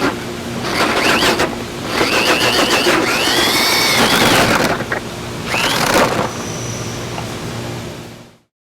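Electric drill driving a hole saw, its motor speeding up and slowing down with noisy spells of running. The sound fades out near the end.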